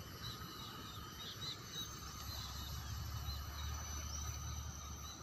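Faint outdoor ambience: small high chirps repeating irregularly over a steady low rumble that grows stronger about halfway through.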